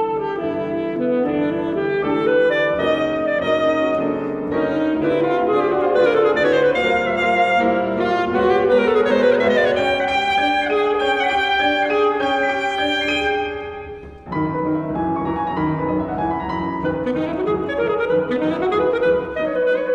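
Alto saxophone playing a classical concert piece with grand piano accompaniment, the saxophone moving through quick runs of notes. The music thins out briefly about fourteen seconds in, then saxophone and piano come back in together.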